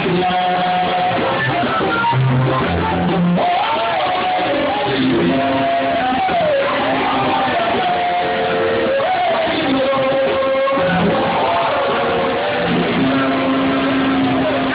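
Live band music, with guitar and a sung or played melody that bends and glides up and down over steady low bass notes.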